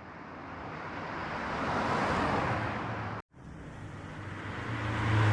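AI-generated car pass-by sound effects played back one after another: a rush of car noise swelling steadily, cut off abruptly about three seconds in, then a second take building up again, with a steady low engine hum joining near the end.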